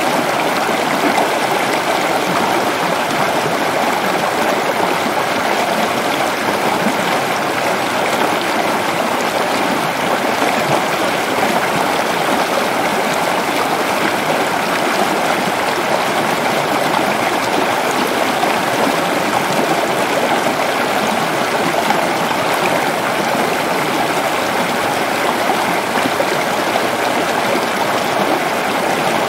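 Mountain stream cascading over rocks: a steady, even rush of water.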